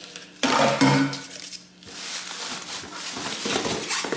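Plastic wrapping and cardboard rustling and crinkling as a boxed rice cooker is handled and lifted out of its box, with a short, louder clatter of the cooker's parts about half a second in.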